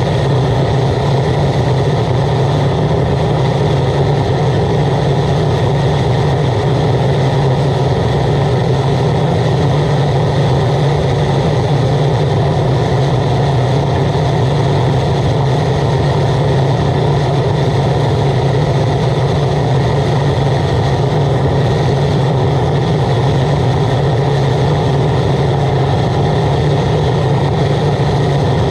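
Waste oil burner firing steadily with its blower, heating a pan of water at a rolling boil: a constant, even rush with a steady low hum beneath it.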